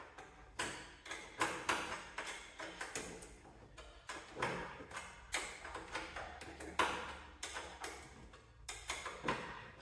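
Metal clinks and taps from a half-inch wrench being worked on a bolt on the engine: irregular short strikes, about two or three a second, each with a brief ring.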